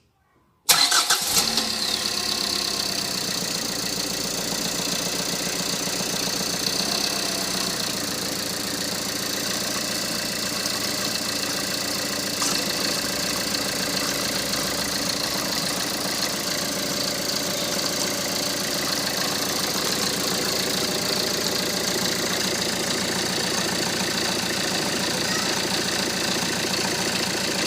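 Tata Xenon pickup's diesel engine starting with a sudden loud catch just under a second in, then idling steadily.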